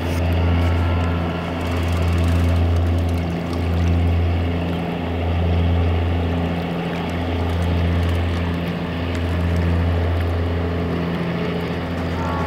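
A boat engine drones steadily: a low hum that swells and fades every second or two.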